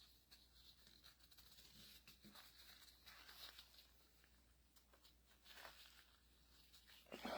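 Near silence with faint rubbing and scraping from hands working a cut O-ring gasket into its seat, and a louder brief rustle near the end.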